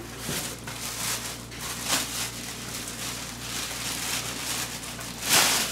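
Clear plastic packaging crinkling and rustling as it is handled and pulled out of a cardboard box, in uneven surges with the loudest crinkle near the end.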